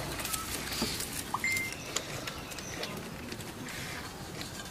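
Dry sticks rustling and clicking as they are handled and pushed under a mud stove, with a brief bird chirp about a second and a half in.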